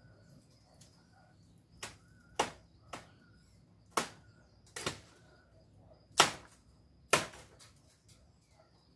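Seven sharp chopping strikes at uneven intervals, the loudest about six seconds in.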